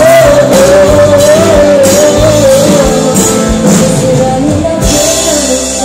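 Live band music with a male singer through the PA: he holds one long wavering note over drums until about three seconds in, then the melody moves on.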